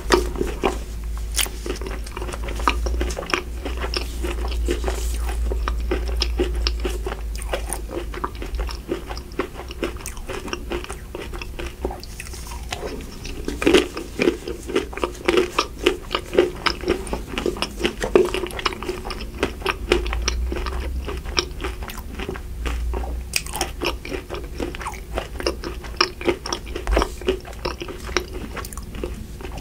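Close-miked chewing and crunching of frozen ice cream bars with a crumbly coating: many sharp crackly bites, thickest and loudest around the middle.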